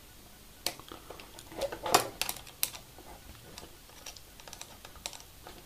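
Scattered small clicks and taps of a screwdriver turning screws into model kit parts as four screws are tightened, a few of the clicks bunched together around the second and third seconds.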